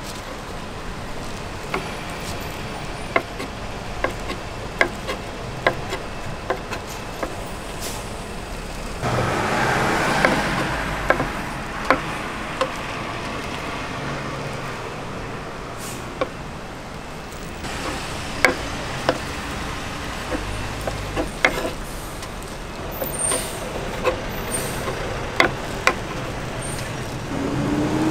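Kitchen knife chopping sundae and pork offal on a wooden cutting board: irregular sharp knocks of the blade striking the board, over a steady hum of street traffic. A louder rushing noise swells for a couple of seconds about nine seconds in.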